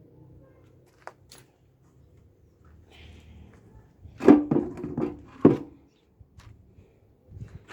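A cluster of sharp knocks and clanks, some with a brief ringing tone, from about four to five and a half seconds in, with a few lighter clicks before and after. A faint low hum fades out within the first second.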